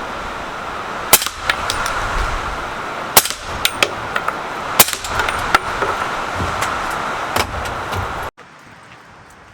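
Suppressed 300 Blackout rifle firing subsonic rounds through a SureFire suppressor: three loud shots about a second and a half to two seconds apart, with fainter sharp cracks in between, over a steady background noise. The background drops away abruptly near the end.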